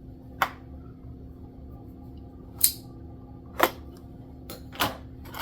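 Packaging being handled while a small toy boat is worked out of its box: four separate sharp clicks and snaps of plastic and cardboard, spaced a second or more apart.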